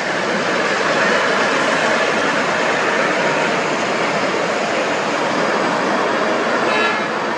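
Tour coach driving slowly past close by: a steady wash of engine and tyre noise. A brief higher-pitched sound comes near the end.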